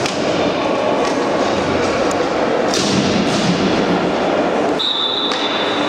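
Youth ice hockey game: a steady scraping rush of skates on ice with knocks of sticks and puck. About five seconds in, a referee's whistle blows one high, steady note.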